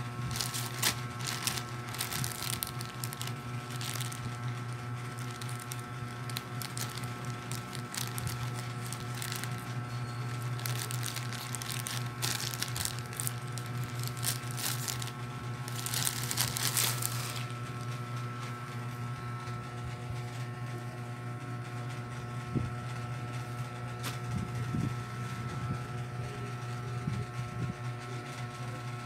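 Plastic courier mailer bag crinkling as it is handled and cut open with scissors, with the loudest burst of crinkling and tearing just past halfway; softer rustling of T-shirt fabric follows. A steady low hum sits underneath.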